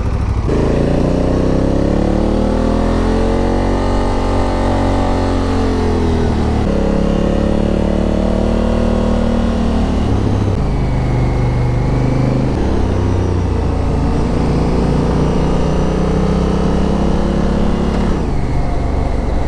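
Honda Africa Twin's parallel-twin engine running under load on a climb, heard from the rider's seat. Its note rises and falls with the throttle and steps in pitch at several gear changes.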